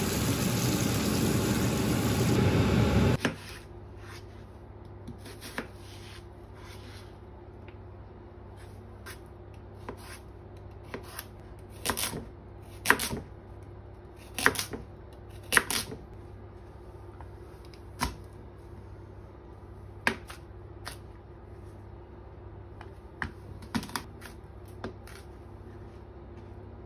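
Hot frying pan sizzling loudly as liquid is poured in to deglaze it, cutting off about three seconds in. Then a kitchen knife chopping carrots on a plastic cutting board: irregular sharp taps, busiest in the middle.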